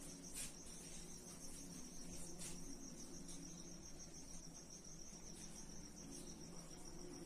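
Faint, steady trill of a cricket, a high rapidly pulsing tone, over a low hum.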